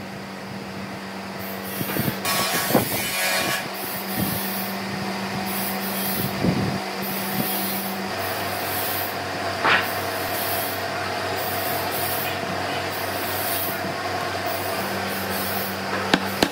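A steady mechanical hum runs throughout, its pitch changing about halfway. Wooden parts are handled and shifted in the first few seconds, and a few sharp taps come near the end.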